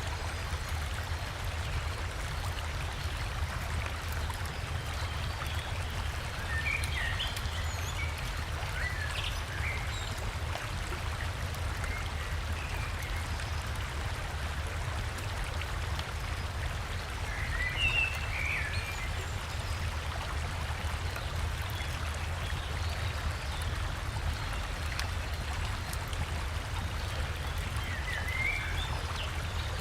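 Steady rush of a flowing forest river, with a low rumble underneath. Small birds chirp briefly now and then, most clearly about 7, 18 and 29 seconds in.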